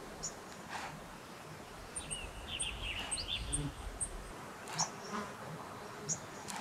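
Quiet meadow ambience: small birds chirping, with a quick run of thin, high cheeps and a wavering call about two to three and a half seconds in.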